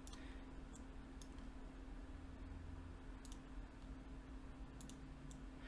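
Faint computer mouse clicks at irregular intervals, a few times a second at most, over a low steady hum.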